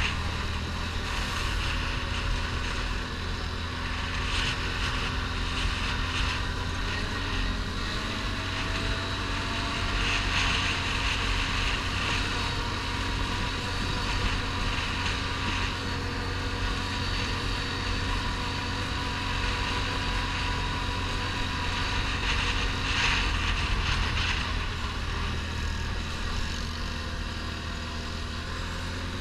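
ATV engine running steadily under way on a loose gravel track, with tyre and gravel noise and patches of louder hiss from time to time.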